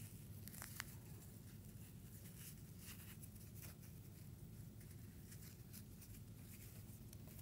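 Faint rustling and soft scratching of cloth and string being handled as string is tied around a fabric-wrapped ball of newspaper, over a low steady background hum.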